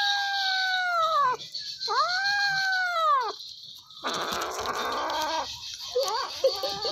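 Kitten's long, arching growl-wail while it guards its raw chicken: two drawn-out calls of about a second and a half each. Then a rougher, noisy growl about four seconds in, and short broken cries near the end.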